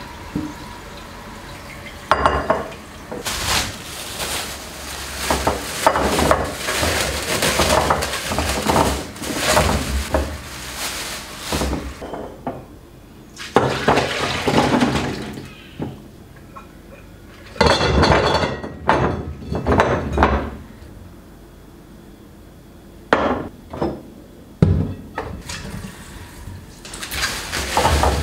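Kitchen things being handled: repeated clinks and clatter of dishes and glass being moved and set down, in several bursts with short pauses between them.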